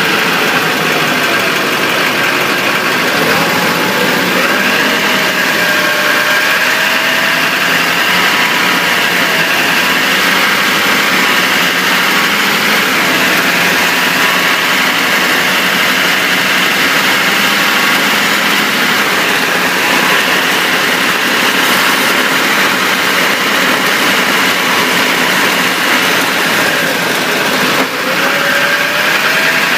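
Steady drivetrain and road noise from beneath a moving 2004 Chevrolet Silverado 2500HD, picked up at the spinning front driveshaft and transfer case, with a faint whine that drifts up and down in pitch as the road speed changes.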